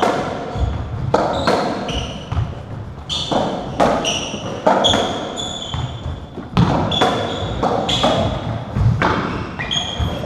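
Racketball rally on a squash court: the ball is struck by rackets and smacks off the walls and wooden floor about once or twice a second, each hit echoing briefly, with short high squeaks of court shoes on the floor between the hits.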